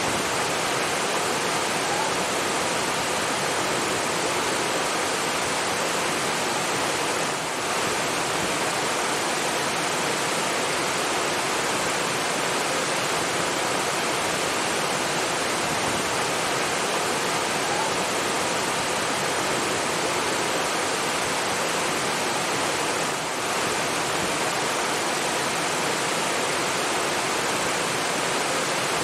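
Steady rush of flowing water, an even continuous wash of noise that dips slightly twice for a moment.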